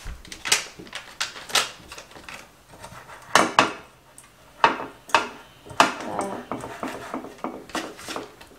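A silicone pastry brush with a metal handle knocking and scraping against a metal muffin tin and a paper margarine wrapper while the cups are greased: a string of irregular clicks and scrapes, about a dozen in all.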